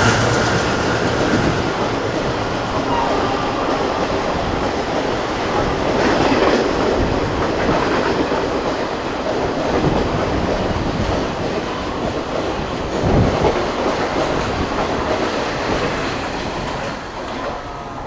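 Passenger coaches of the Mumbai–Chennai Express rolling past, a steady rumble of wheels on rail with clickety-clack over the joints and a few louder clanks. The sound slowly fades near the end as the train moves away.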